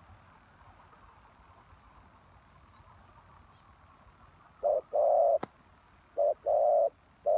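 Spotted dove cooing. After a few seconds of faint hiss it starts about two-thirds of the way in, with low, steady coos in short-long pairs repeating about every second and a half. A single sharp click falls between the first and second pair.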